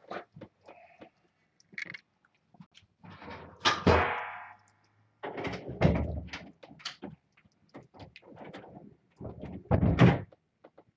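Kittens scampering and playing in a towel-lined pen, making a run of scattered knocks and clicks. Three louder thumps stand out, one a little before the middle, one just after it and one near the end.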